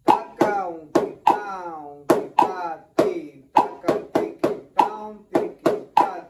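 Drumsticks striking a drum practice pad in a sticking exercise, about three sharp strokes a second in a slightly uneven pattern, each with a short ring that drops in pitch.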